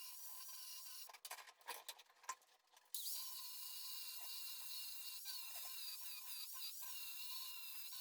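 Small rotary power tool whining at high pitch as it works on the axe, its pitch wavering as it bears on the work. About a second in it breaks off into a couple of seconds of scattered clicks, then runs on.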